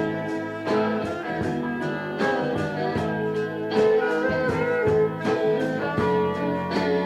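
A band playing an instrumental passage led by guitar over a steady beat.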